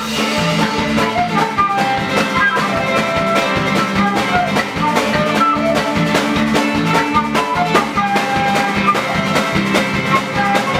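Irish-flavoured folk-punk band playing: a flute carries the melody in held notes over a drum kit, electric bass and acoustic guitar, with a steady beat.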